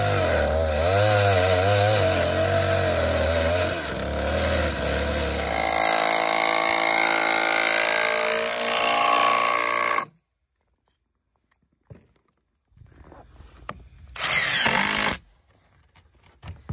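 Handheld power drill running under load into the trailer's wooden ties, its pitch wavering as it bites, for about ten seconds before stopping abruptly. A second short burst of the tool comes about fourteen seconds in.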